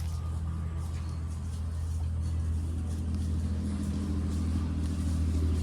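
An engine running steadily, its pitch rising a little in the second half.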